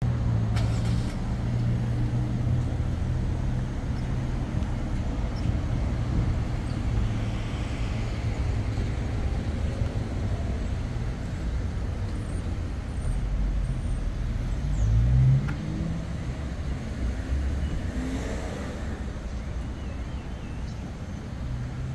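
Street traffic: a steady low rumble of car engines on the road, with one vehicle accelerating past about two thirds of the way through, the loudest moment, and another car passing soon after.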